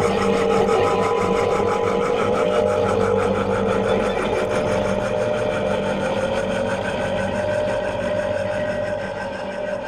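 Electroacoustic drone: a dense, machine-like sustained texture of steady tones with a fast, even flutter running through it, easing down slightly near the end.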